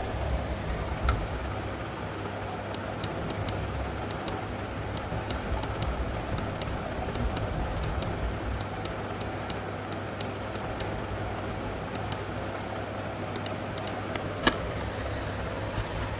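Computer mouse clicking repeatedly and irregularly, about two to three sharp clicks a second, as the smudge tool is worked in short strokes, over a steady low background hum.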